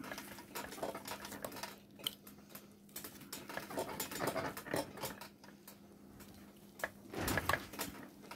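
Knife and fork carving a roast goat leg in a stainless steel roasting tray: the blade slicing and scraping through the meat, with small metal clicks of cutlery against the tray. The loudest scraping comes about seven seconds in.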